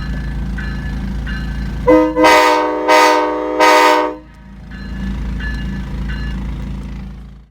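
Truck-mounted locomotive air horn blowing a chord of several notes for about two seconds, in a few quick pulses, over a steady low hum.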